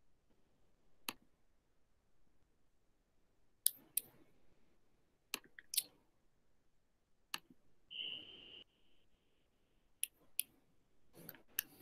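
Faint, scattered computer mouse clicks, about ten, several in quick pairs. About eight seconds in there is a brief high beep.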